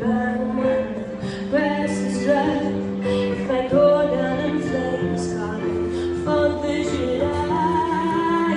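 Live band music with a female voice singing.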